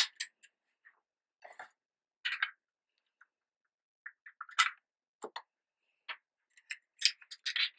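Handling noise from an airsoft AK rifle being picked up and moved: scattered light clicks and knocks, with a quicker run of clicks near the end.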